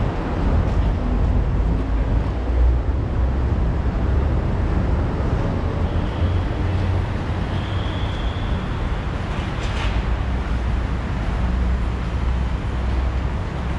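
Continuous low rumble of road traffic from the elevated expressways overhead, steady throughout.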